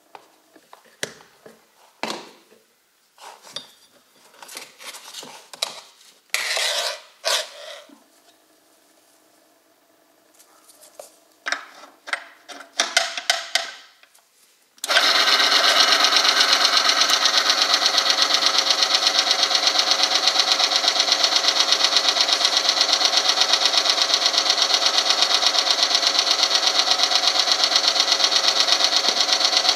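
Scattered clicks and knocks of parts being fitted on an oil friction testing machine, then about halfway through the electric motor switches on and spins the steel ring against the metal test sample bathed in the oil under test: a loud, steady mechanical whirr with a fast, even pulse.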